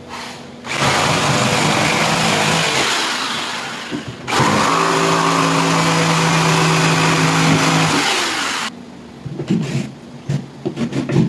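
Electric jigsaw cutting through marine plywood in two long runs with a brief stop between, the second run carrying a steady motor hum; after it stops, a few light knocks.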